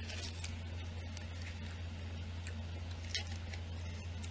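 Gum being chewed with the mouth closed, giving scattered faint wet clicks over a steady low electrical hum.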